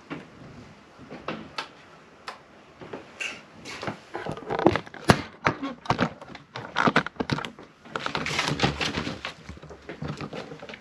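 Irregular clicks, knocks and clatter of hands working on a motorcycle headlight and handlebar switches, busier in the second half, with a stretch of rustling handling noise near the end as the camera is picked up.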